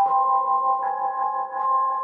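Emergency Alert System style alarm: two steady electronic tones held together, with other chime-like notes changing around them, one higher note coming in a little under a second in.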